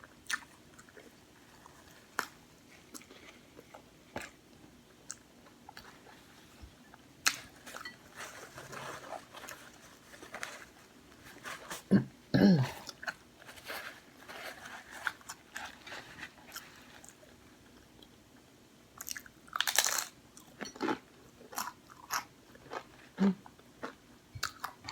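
A person eating a taco close to the microphone: scattered bites, crunches and chewing mouth sounds, with louder mouthfuls about twelve and twenty seconds in.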